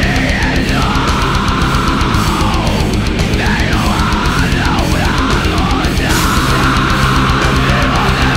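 Heavy metal song: distorted electric guitars and bass over a drum kit, loud and continuous.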